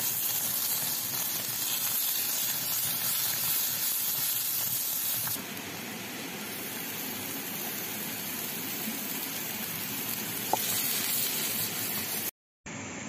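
Chopped onion and garlic dropped into hot oil in a frying pan, sizzling and hissing. The sizzle starts as they hit the oil and drops to a lower, steady frying sound about five seconds in.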